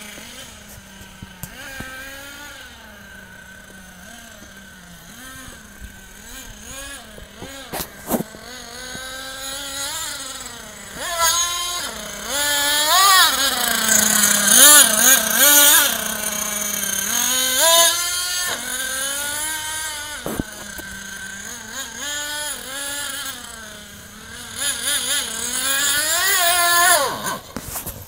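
Small nitro-fuelled engine of a Thunder Tiger RTA4 S28 RC short-course truck, revving up and down over and over as the truck accelerates and lets off around a dirt track. It is loudest in the middle, and the engine runs down near the end as the fuel mix runs out.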